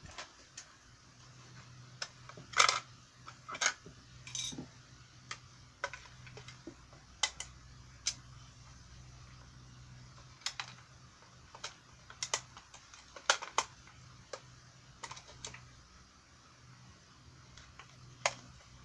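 Irregular clicks, taps and knocks of hard plastic as a toy patrol boat's hull is handled and its battery cover is worked open, with a few louder snaps scattered among the lighter taps.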